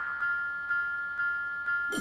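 Cartoon railroad crossing warning bell ringing, a bell-like tone struck about twice a second.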